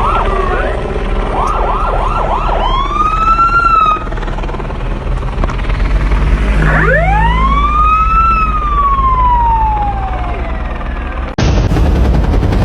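Emergency vehicle sirens: a quick repeated yelp, then a wail that rises and slowly falls, over a steady low rumble. Near the end the sound cuts abruptly to a loud, fast, rattling noise.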